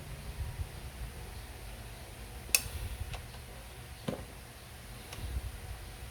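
Scattered light clicks and taps of hand tools and small metal parts being worked on a STIHL 070 chainsaw engine, the sharpest about two and a half seconds in, over a low steady rumble.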